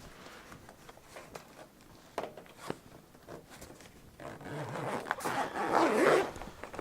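Zip on a fridge's padded insulated cover being pulled closed: a few small clicks and rustles, then a longer, louder rasping zip from about four to six seconds in.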